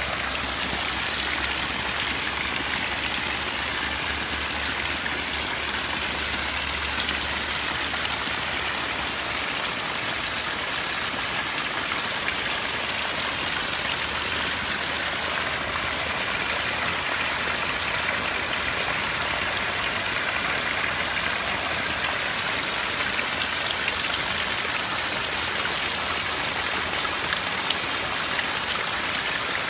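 Heavy rain falling steadily on trees, foliage and waterlogged ground: a dense, even hiss with no let-up. A low hum runs underneath and stops about nine seconds in.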